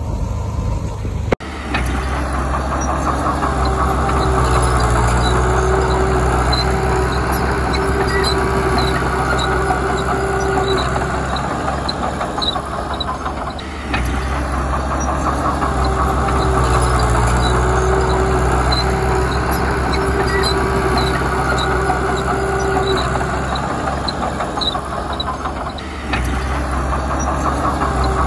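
Komatsu D31P crawler bulldozer's diesel engine running under load, swelling and easing twice, with a light regular ticking of the tracks over it. The sound drops out briefly about a second in, then resumes.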